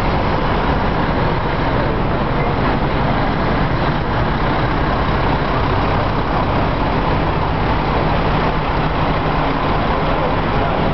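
Fire trucks' diesel engines running, a loud, steady, unbroken rumble with a low hum.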